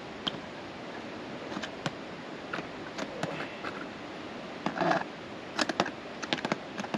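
Ice-tool picks and crampons scraping and tapping on rock during mixed climbing: scattered sharp clicks and scrapes, thickening into a quick run of taps about five to six seconds in.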